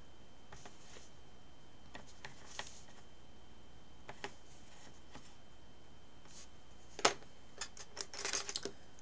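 Small clicks and taps of metal sculpting tools against polymer clay and a plastic cutting mat: a few faint ticks, a sharper clack about seven seconds in, then a short run of clicks and rattles near the end as tools are put down and picked up.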